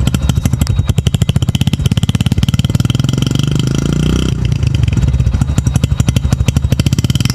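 Hero commuter motorcycle's single-cylinder four-stroke engine running at low throttle through an old-style Splendor chrome silencer, with an even exhaust beat. The revs rise a little about two seconds in, drop back about four seconds in, and then settle.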